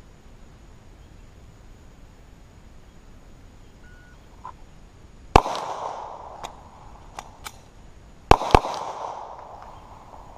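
A 9mm semi-automatic pistol fired three times with steel-cased 115-grain ammunition: one shot about five seconds in, then a quick pair about three seconds later. Each crack is followed by a rolling echo, and there are a few faint ticks between the shots.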